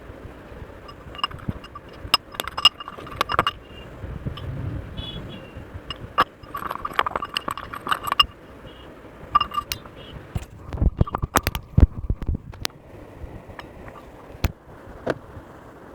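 Irregular clinks and taps of a utensil against a hard container, some with a short ring, as when stirring or handling slime ingredients. A quick run of knocks comes about eleven seconds in.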